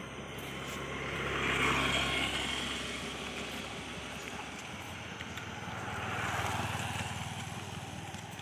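Two motorbikes riding past one after the other, each engine swelling up and fading away; the first is loudest about two seconds in, the second about six and a half seconds in.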